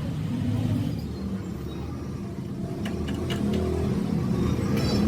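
A motor vehicle engine rumbling steadily, with a few light clicks about three seconds in and near the end.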